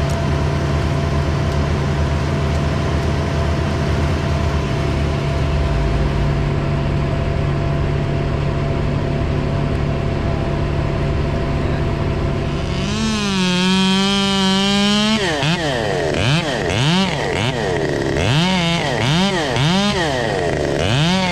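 A steady engine drone, then from about 13 s a chainsaw running at high speed, revved up and down repeatedly from about 15 s on.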